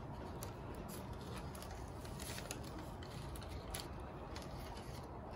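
Handling of sealing tape being pressed along a steel shed's gable edge: scattered faint light clicks over a low steady background rumble.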